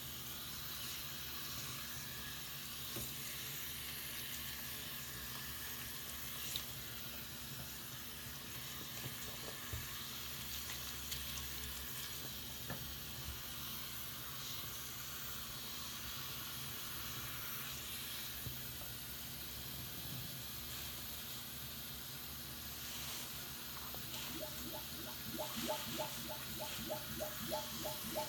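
Tap running into a sink full of soapy foam while a soaked sponge is squeezed and swished through the suds, a steady watery hiss. Near the end comes a quick run of short wet squelches from the sponge, about three or four a second.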